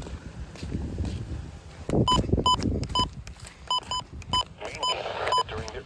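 Short electronic beeps from a weather radio receiver: about eight brief, high beeps at uneven intervals starting about two seconds in. A low rumble comes before them, and a radio hiss rises near the end.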